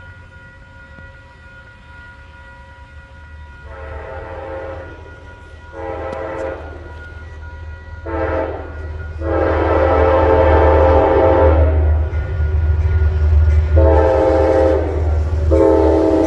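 A diesel locomotive's multi-chime horn sounding the grade-crossing pattern of long, long, short, long, then two more blasts, over a deep engine and rail rumble that grows louder as the train approaches.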